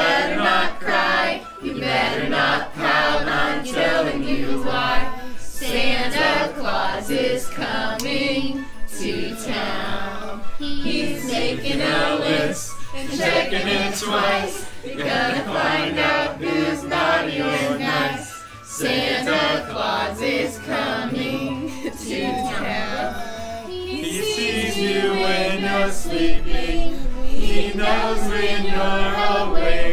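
A group of carolers singing a Christmas carol together, growing louder near the end.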